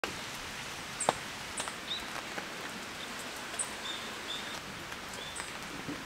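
Heavy rain falling steadily on a camping tarp and tent, with scattered louder drops and a few short high chirps.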